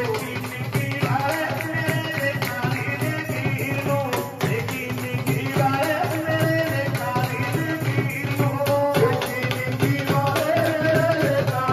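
Live Punjabi devotional song sung by men into microphones over a sound system, with rhythmic hand percussion and clapping keeping a steady beat.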